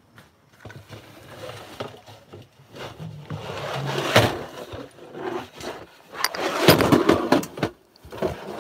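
Handling noise of a phone being carried and jostled: rustling, scraping and knocks, loudest about four seconds in and again around seven seconds.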